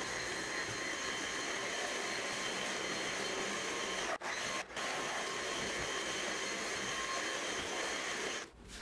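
Steady whirring of a small motor or blower, with a faint high whine over it, cut off for an instant twice a little past four seconds in.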